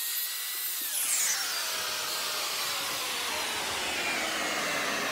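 Handheld hair dryer blowing steadily, its motor whine holding pitch and then falling slowly from about a second in.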